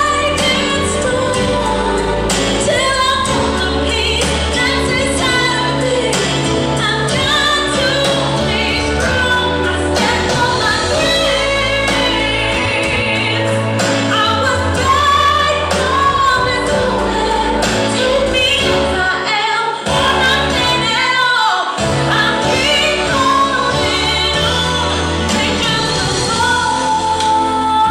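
Pop song with a female lead vocal over a steady bass line, with a short break and a falling sweep about twenty seconds in.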